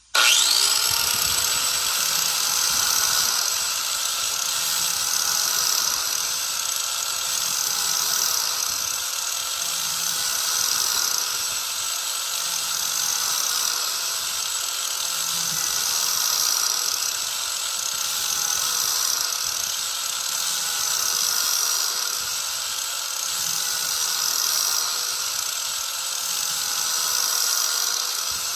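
Angle grinder with an 80-grit disc starting up and grinding the edge of a steel lawn mower blade to sharpen it. The motor runs with a steady whine while the grinding hiss swells and eases every two to three seconds as the disc is drawn along the edge.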